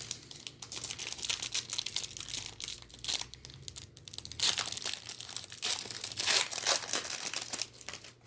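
Wrapper of an Upper Deck Allure hockey card pack being torn open and crinkled: an irregular run of crackling rips and rustles, loudest in the second half, that stops just before the end.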